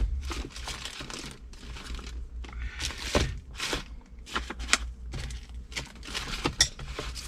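A string of irregular short rustling, crinkling and scraping sounds of hands handling and pulling at parts during a repair.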